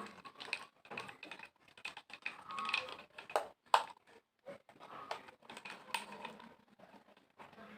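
Irregular small plastic clicks and taps from handling a small humidifier, its parts and buttons, with one sharper click about halfway through.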